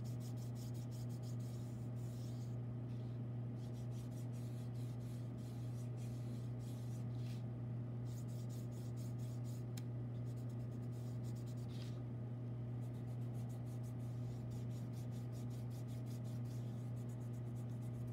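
Fingertips rubbing chalk pastel into paper in quick, light, repeated strokes to smudge and blend the lines, with a couple of brief pauses. A steady low hum runs underneath.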